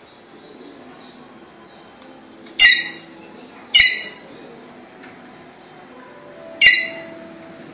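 White-naped jay (gralha-cancã) giving three loud, short calls: two about a second apart, then a third some three seconds later.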